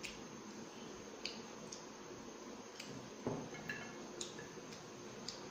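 Fingers and a mutton bone clicking and tapping against a glass plate while food is picked apart by hand: a handful of light, scattered clicks, with one louder knock a little past halfway.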